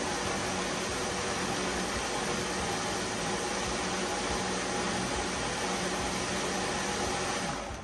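Buchymix high-speed countertop blender running steadily at full speed, puréeing red peppers with no water added, then switched off about seven and a half seconds in.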